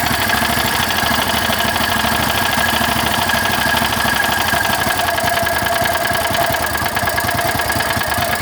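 Landmaster's engine idling steadily, with a fast even firing beat and a faint steady whine over it.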